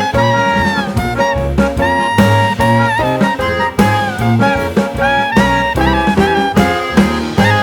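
Background music: up-tempo jazz with a horn lead, walking bass and drums.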